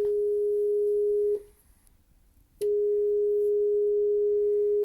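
Nakamichi 680ZX cassette deck in calibration mode putting out a steady test tone of about 400 Hz. The tone cuts off with a click about a second and a half in, comes back with another click about a second later, and stops abruptly at the end. This is the strange clicking heard at the deck's output when TAPE is selected instead of SOURCE, which the uploader ties to the spinning azimuth motor.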